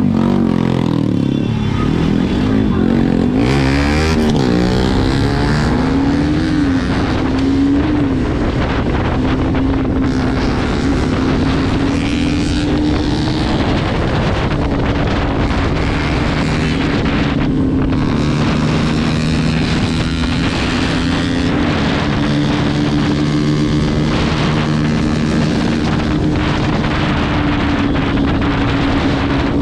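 Motorcycle engine and exhaust heard from the rider's seat: the revs rise and fall a few times in the first several seconds as the bike pulls away through traffic, then settle into a steady run at cruising speed.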